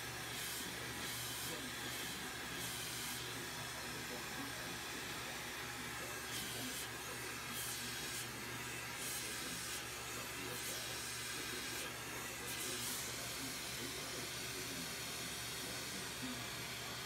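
Glassworking torch hissing steadily as it heats the glass, with short surges of sharper hiss every second or two over a faint low hum.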